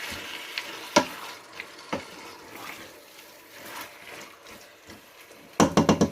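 Chicken cooking in a hot pan with a steady sizzling hiss. There are a couple of single clicks from the spoon, then near the end a quick run of sharp knocks of a spoon against the pan.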